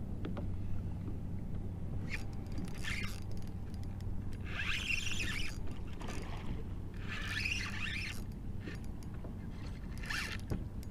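Spinning fishing reel whirring in about four short bursts, each lasting roughly a second, while a hooked fish is fought and pulls on the line. A steady low hum runs underneath.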